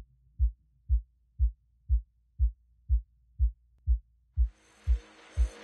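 Opening of an electronic music piece: a deep, single thump about twice a second, like a slow kick drum or heartbeat pulse. About four seconds in, a hissing wash with held tones fades in over the beat and grows louder.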